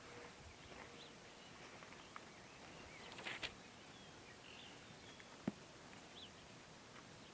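Quiet outdoor ambience with a few faint bird chirps and a soft rustle, and one sharp click about five and a half seconds in.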